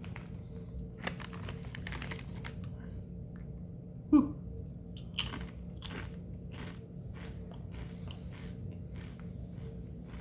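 Crunching and chewing of Sun Chips Chili Lime multigrain chips: a string of crisp crunches, with one short louder vocal sound from the eater about four seconds in.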